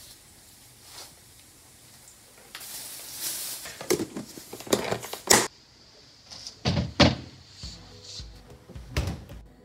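Kitchen handling noises: a brief rustle, then a series of sharp knocks and thuds, with a few more knocks later.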